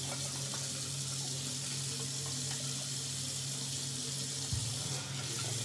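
Tap water running steadily into a bathroom sink, with a steady low hum underneath.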